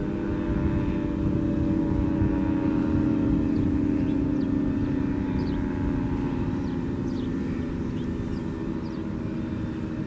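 Federal Signal 3T22 three-tone outdoor warning siren sounding its steady chord during a test. It swells a couple of seconds in and then eases off as the rotating horns turn, and its pitch sags slightly near the end.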